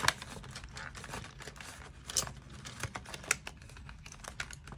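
Crinkling and rustling of a clear vinyl cash envelope and paper bills being handled, with scattered small clicks and taps at an uneven pace; the sharpest click comes right at the start.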